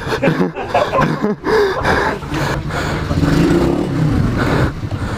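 Pit bike engine blipped a few times in quick succession, its pitch rising and falling, then running more steadily.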